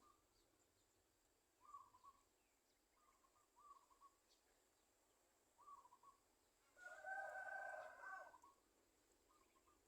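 Faint short bird calls, each under half a second, repeated every second or two, with one louder and longer call of about a second and a half about seven seconds in.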